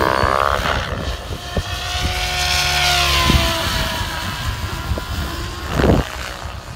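Electric Mikado Logo 700 RC helicopter in flight: rotor blades and electric motor running, the pitch rising and falling as it manoeuvres while the governor holds the head speed. A short rush of noise comes about six seconds in.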